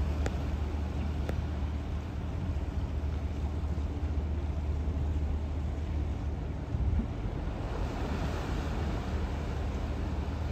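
Steady low rumble of a large motor yacht's engines running at low revs. A broader hiss swells about eight seconds in.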